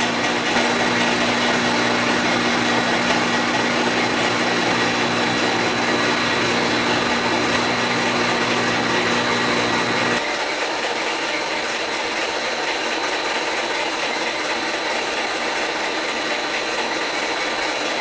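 Steady machinery noise in a dairy milk house, a constant hiss with a few steady whining tones over it. A lower hum from one of the machines cuts off suddenly about ten seconds in, while the rest keeps running.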